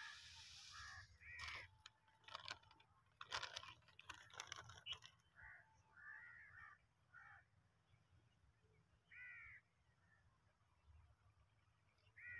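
Faint crow caws, short calls repeated every second or so, with scattered crunches and rustles between about two and five seconds in.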